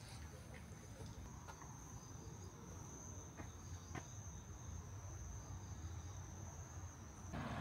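A steady, high-pitched insect trill over a faint low rumble, with a couple of faint ticks in the middle. Just before the end it cuts off abruptly and louder, busier noise takes over.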